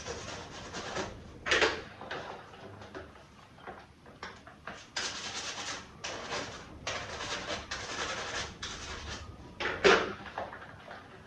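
Hand-work noises: repeated bursts of scraping or rubbing, with two louder knocks, one about one and a half seconds in and one near the end.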